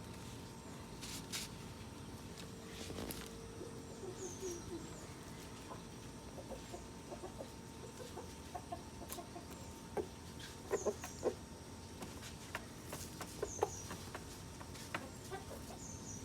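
Faint clucking of chickens, with short high chirps recurring every few seconds and a cluster of sharp clicks a little past the middle.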